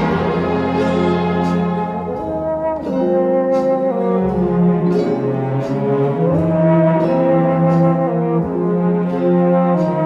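Background instrumental music: a slow melody of long held notes that slide up and down between pitches over sustained lower notes.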